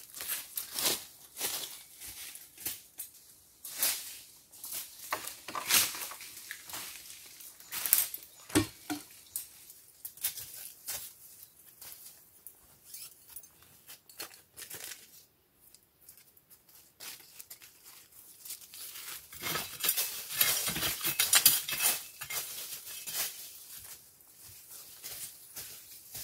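Dry leaf litter and twigs rustling and crackling underfoot and under hand as a person moves through forest undergrowth, in irregular snaps and crunches. A denser stretch of rustling comes about twenty seconds in.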